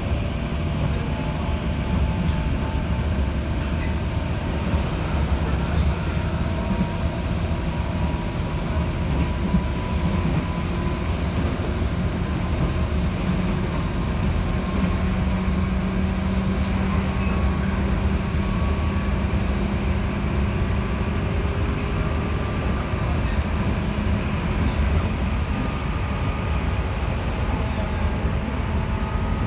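Running noise of a 211 series electric train heard from inside the carriage: a steady rumble of wheels on the rails, with a low hum and a few faint tones that drift slightly in pitch.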